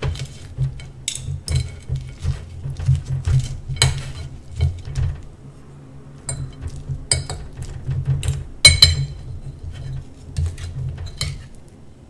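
A metal fork and spoon clinking and scraping against a ceramic plate while cutting into a roti canai: a run of sharp, irregular clinks, the loudest about three-quarters of the way through, over a low steady hum.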